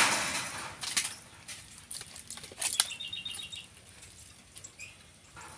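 Plastic water bottle handled and crinkled, with a few sharp clicks, then its screw cap twisted open with a quick run of small ticks about three seconds in.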